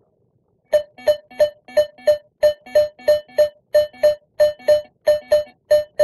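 AKA Sorex Pro metal detector beeping at an early Soviet 1-kopeck coin passed back and forth over its coil: a clear, short tone repeating about three times a second, starting under a second in.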